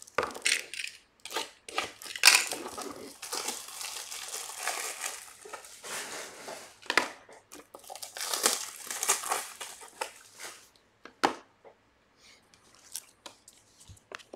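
Plastic crinkling in irregular bursts for about ten seconds as a pack of card top loaders is handled, then one sharp click of hard plastic and a few light taps near the end.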